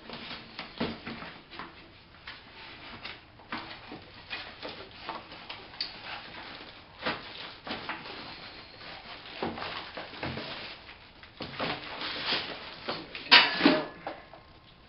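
Cardboard box flaps being opened and handled, with irregular rustling, scraping and light knocks. A louder burst of handling comes about 13 seconds in.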